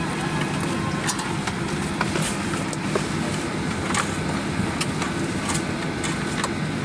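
Steady hum of a Boeing 737-800's cabin air conditioning while parked at the gate, with scattered clicks and knocks of bags and overhead bin doors as passengers stow luggage.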